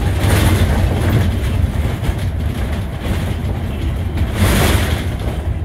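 Hino QPG-KV290Q1 city bus under way, heard from inside near the front door: a steady low engine and drivetrain rumble with road noise. It swells twice into louder rushes of noise, just after the start and again about four and a half seconds in.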